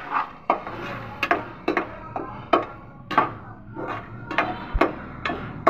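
Metal slotted spoon stirring masala in a steel pan, knocking and scraping against the pan about two to three times a second, each stroke with a brief metallic ring, as the spices are fried with a little water.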